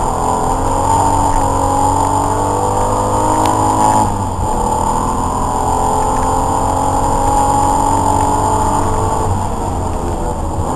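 Racing car's engine heard from inside the cabin under hard acceleration: the pitch climbs, drops sharply at a gear change about four seconds in, climbs again through the next gear, then falls away near the end as the driver eases off.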